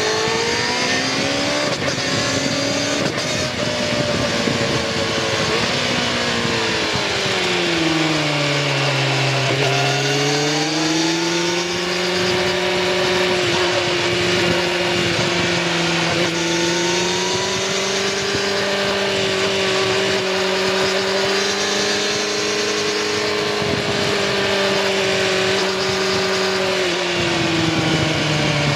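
2019 Kawasaki Ninja ZX-6R 636's inline-four engine through its stock exhaust while riding: the engine pitch rises, falls to a low about ten seconds in, then climbs back and holds fairly steady, dipping again near the end. Wind and road rush run steadily underneath.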